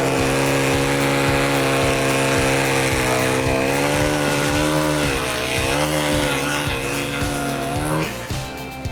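Wood chipper engine running steadily, its pitch sagging and recovering several times as it bogs under load from logs being fed through, then cutting off abruptly about eight seconds in.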